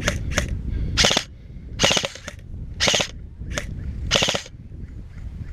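Airsoft guns firing about eight short bursts, some of them rapid full-auto strings, in the first four and a half seconds.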